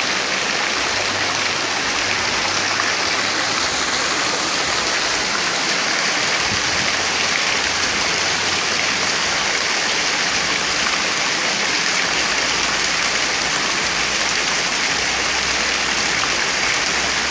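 A stream of rainwater pouring into a plastic basin full of water and splashing hard, over steady heavy rain. Loud and continuous.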